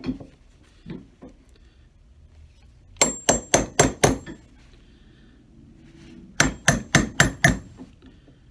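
A hammer strikes a small steel punch, pre-stamping screw holes through the tough leather at a shoe's toe. Two quick runs of about five sharp, ringing taps come about three seconds in and about six and a half seconds in, after a few lighter knocks at the start.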